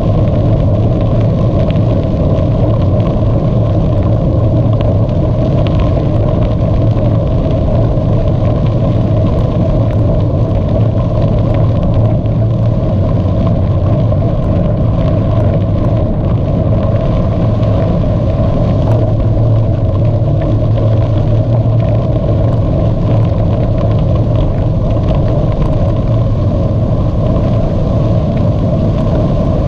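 Steady rumbling noise of a moving bicycle: wind buffeting the microphone over the rolling of the tyres on the path, with a few faint ticks.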